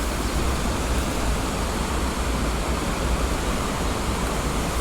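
Steady rush of a small spring creek's flowing water: an even hiss with a low rumble beneath.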